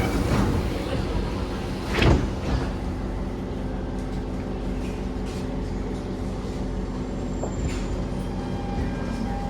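Sliding doors of a Siemens C651 metro train shutting with one loud thud about two seconds in, over the train's steady electrical hum and rumble.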